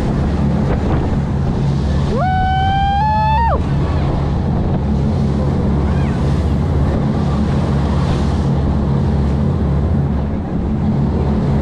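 Boat running at speed through chop: a steady engine drone under the rush of spray splashing off the hull and wind buffeting the microphone. About two seconds in, a short high-pitched cry rises and holds for about a second and a half.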